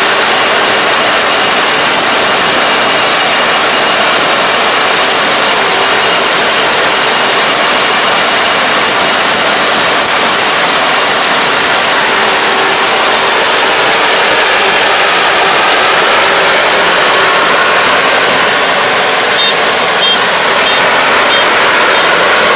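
Kubota DR575 five-row combine harvester running under load while cutting and threshing rice: a loud, steady mechanical din of engine, header and threshing drum, close by as the machine passes.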